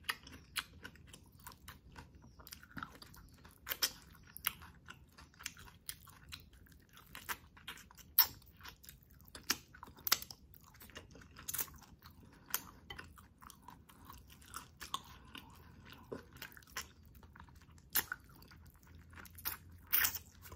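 A person chewing and biting chicken adobo in coconut-milk sauce, with frequent short, sharp mouth clicks at an irregular pace.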